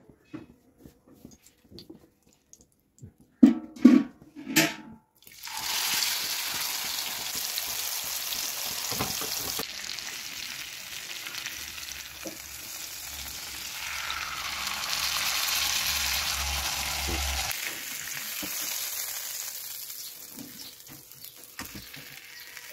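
Marinated chicken breast frying on a hot flat griddle (tawa): a few loud knocks, then a steady loud sizzle from about five seconds in, as the meat is turned with a fork.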